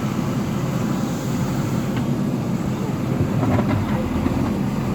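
Diesel engine of a JCB earthmoving machine running steadily under work, a low rumble.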